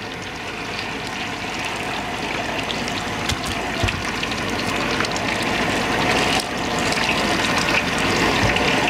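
Tofu frying in a wok of hot oil: a steady sizzle with light crackles, slowly growing louder.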